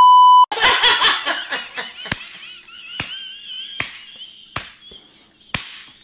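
A steady test-card beep tone for about half a second, then a woman's high-pitched laughing and squealing, punctuated by five sharp slaps spaced a little under a second apart.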